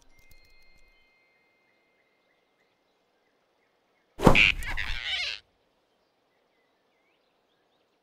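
Animated sound effect of a quick swish and thump, about four seconds in and lasting just over a second, as a large paw snatches a small animal. Faint forest ambience is around it.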